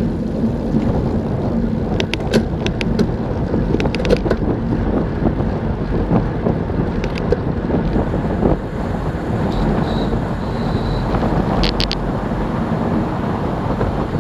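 Wind rushing over the microphone of a bike-mounted action camera on a fast road-bike descent, a steady loud noise with a low rumble, broken by a few sharp clicks and knocks.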